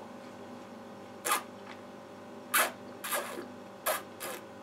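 A wine taster drawing air through a mouthful of white wine to aerate it on the palate: five short, hissing slurps at uneven intervals.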